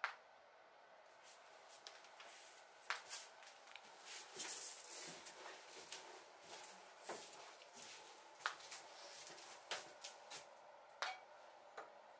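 Quiet sounds of a painter handling her materials: scattered light taps and clicks, with a few seconds of dry rubbing in the middle, like a stick or tool working across a surface.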